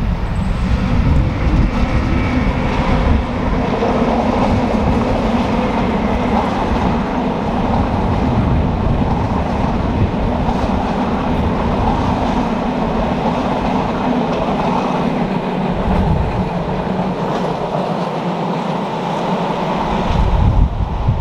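ČD Railjet passenger train hauled by a Siemens Taurus class 1216 electric locomotive running past at speed, a steady rush of wheel-on-rail noise and rumble from the passing coaches. The low rumble thins out as the last coaches go by.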